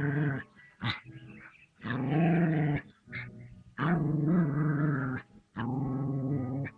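Small white terrier growling in long rumbling growls, each about a second, four in a row with short pauses between them: the dog's warning growls as it squares off against a hooded cobra. A brief click about a second in.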